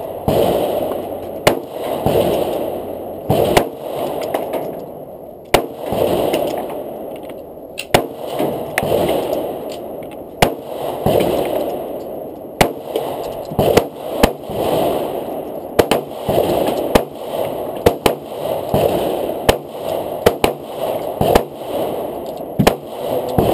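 Handgun shots at a shooting range: sharp single cracks at irregular gaps of roughly one to two seconds, some louder than others, with a rushing noise swelling and fading between them.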